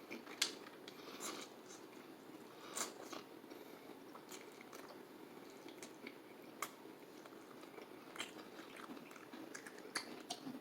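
A person chewing food at low level, with a few sharp clicks and crunches scattered through.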